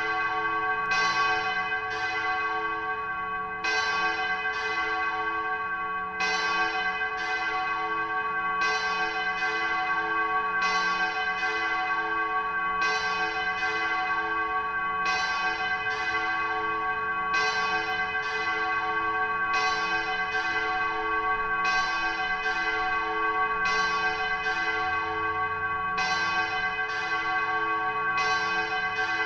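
Spanish church bells ringing: a steady run of strokes, often in groups of three, a little under a second apart, with the bells' tones ringing on between the strikes.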